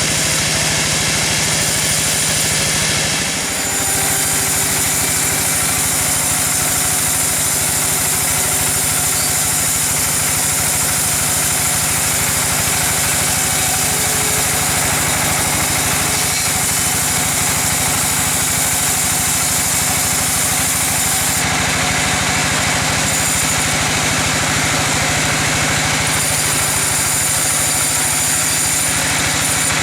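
Sawmill machinery running steadily: an engine's even hum under a loud high hiss, with a brief dip about three and a half seconds in.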